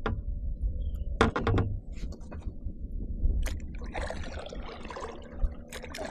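Water splashing and lapping against a kayak, with a few sharp knocks against the boat, over a low rumble of wind on the microphone.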